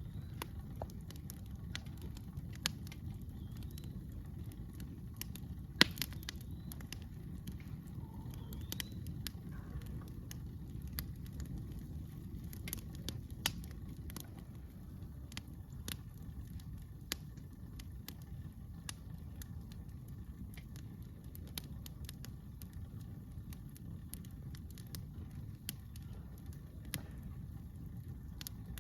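Wood campfire crackling, with scattered irregular pops and one sharper, louder pop about six seconds in, over a steady low rumble.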